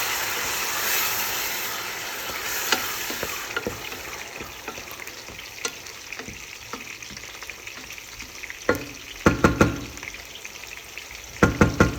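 Blended tomato-and-garlic paste sizzling in hot oil with onions in a frying pan, the sizzle loud at first and dying down over the first few seconds. Then a spoon knocks against the pan in two quick flurries of stirring near the end.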